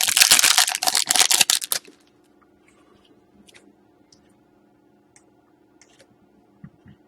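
Foil wrapper of a pack of hockey trading cards being torn open and crinkled, loud for about the first two seconds. After that there are only a few faint ticks.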